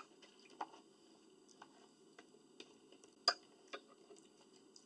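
Faint, scattered clicks and light taps at an uneven pace, the loudest about three seconds in: small eating noises of a spoon and mouth at a breakfast table.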